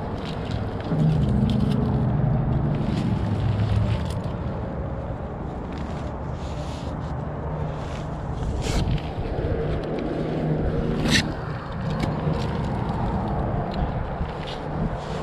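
A climber's hands and clothing scraping against rock, over a steady low rumble. A couple of sharp clicks of climbing gear come about nine and eleven seconds in.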